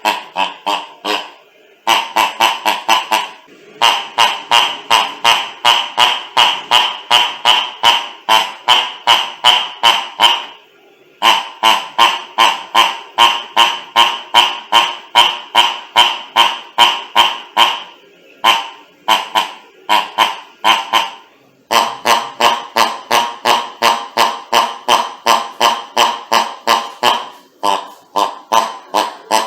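Rubber pig dog toy being squeezed over and over, giving honking, grunt-like squeaks about three a second in long runs with brief pauses between them.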